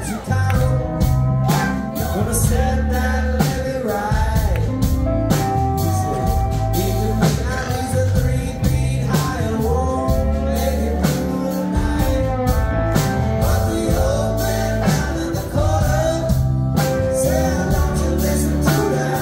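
Rock band playing live, heard from the audience: electric guitars, bass guitar, keyboard and drums.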